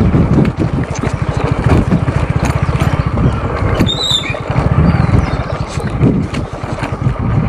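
Motorcycle engine running at a steady pace as the bike rides over a rough, stony dirt track, its exhaust giving a fast even beat, with scattered knocks and rattles from the bike jolting over the stones. A short high chirp comes about four seconds in.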